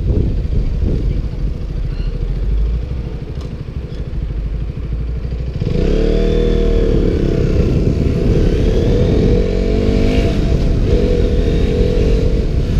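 KTM Duke motorcycle engine, heard from on the bike. It runs low and muffled under wind buffeting on the microphone, then about six seconds in it speeds up, and its note rises and falls as it pulls through the revs.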